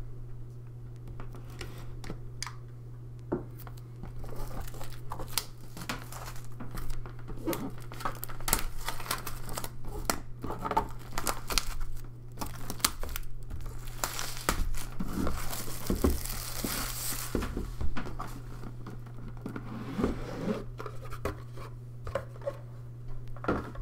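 Plastic shrink wrap being torn open and crinkled off a cardboard game box, with scratches and taps of fingers on the box; the crinkling is densest and loudest past the middle. A steady low hum runs underneath.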